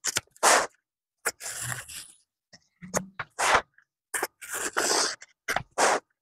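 Scissors snipping through vinyl upholstery material and the cut strip scraping and rustling as it is pulled along, about a dozen short, sharp sounds with brief gaps between them.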